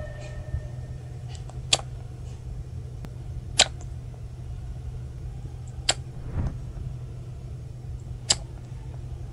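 A sugar glider coughing: four short, sharp coughs about two seconds apart, over a steady low hum. The coughing is a sign of the cold it has caught.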